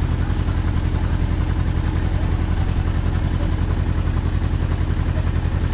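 Engine of a passenger boat running steadily under way, heard from on board: a low drone with a fast, even pulse that does not change.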